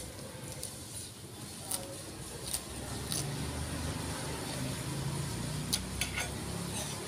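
Low rumble of a motor vehicle running nearby, swelling about three seconds in, with a few sharp clicks over it.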